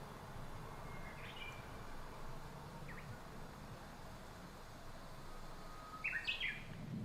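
Faint outdoor background noise with a few short bird chirps; the clearest is a quick run of high notes about six seconds in.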